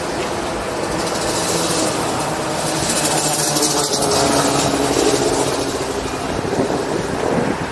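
Motor vehicle engine running close by in street traffic, its pitch shifting up and down, with a noisy swell that is loudest around the middle.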